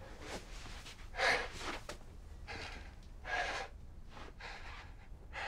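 A man breathing heavily in ragged gasps, about four or five breaths, the loudest about a second in. He is in pain after being shot.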